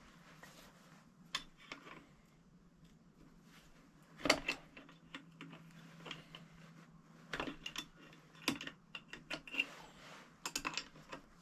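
Scattered light clicks and taps of small metal lathe parts and tools being handled while the cross slide is locked up. The loudest knock comes about four seconds in, with a quick run of clicks near the end. A faint steady hum runs underneath.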